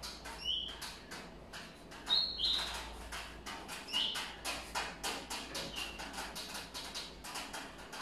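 Paper leaflets and packing being handled and folded, a quick run of rustles and crinkles, with a few short high chirps over it.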